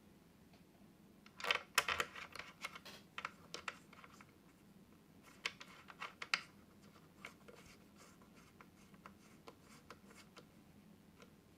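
Small scratching and clicking handling sounds: a dense cluster of scratchy clicks about a second in, another short group in the middle, then scattered faint ticks.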